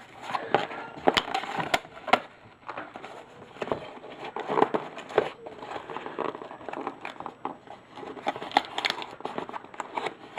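Packaging being handled: a mailed box opened and its packing material crinkled and rustled, with irregular crackles and clicks throughout.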